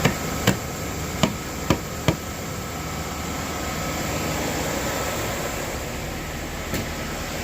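The 1998 Chevy Venture's 3.4-litre V6 idles steadily. Over it come five sharp taps or knocks in the first two seconds and one more near the end.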